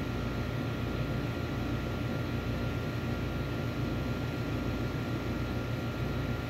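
A steady low mechanical drone with a faint, steady high whine above it.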